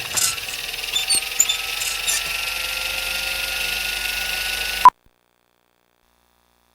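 DVD menu sound effect: a steady whirring buzz with a slowly rising tone and a few short high pings, cut off by a sharp pop about five seconds in, followed by dead silence.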